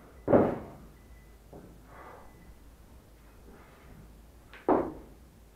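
A lifter working a 28 kg kettlebell through a one-arm long cycle (clean and jerk): two sharp, short sounds of effort and movement, one just after the start and one near the end, with fainter ones between.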